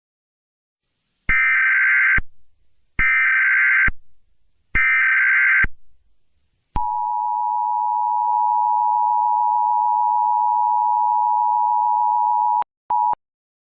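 Emergency Alert System signal: three short warbling data bursts of the SAME header, about a second each and a second apart, then the steady two-tone EAS attention signal. The attention tone cuts off about a second before the end, with one short blip after it.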